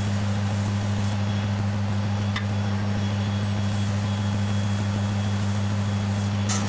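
Wood lathe running at steady speed with a low, even hum, while a cloth rubs against the spinning ash hollow form as finish is applied.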